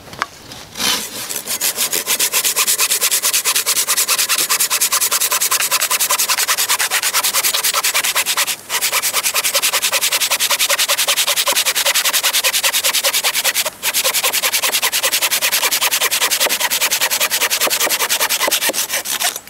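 Silky Big Boy folding saw cutting through a dead but solid log, in fast, even back-and-forth strokes that rasp steadily, with two very short breaks partway through.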